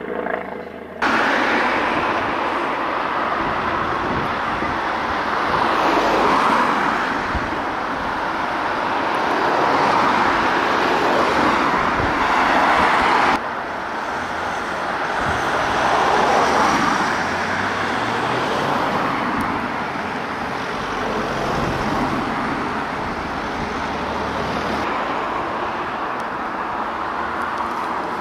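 Armoured police Land Rovers driving past in a convoy: engine and tyre noise that swells as each vehicle goes by. The sound changes abruptly about a second in and again about halfway through.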